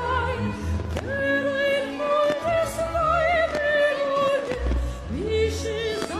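A woman singing long, held notes in an operatic, classical-crossover style with a wide vibrato, over sustained orchestral backing music.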